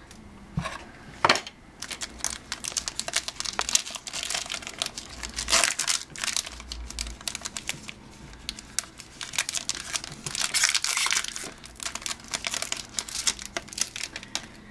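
Wrapping crinkling and tearing in a dense run of crackles as a sealed trading card box is opened and unwrapped, busiest about four to six seconds in and again around ten to eleven seconds in.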